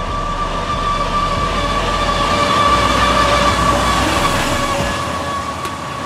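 A large machine running steadily, with a continuous high whine over a low rumble.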